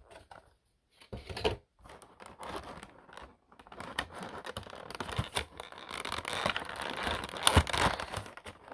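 Clear plastic packaging on a plastic tray being crinkled and pried off by hand: irregular crackles and clicks, sparse at first and busier from about four seconds in, with one sharper snap near the end.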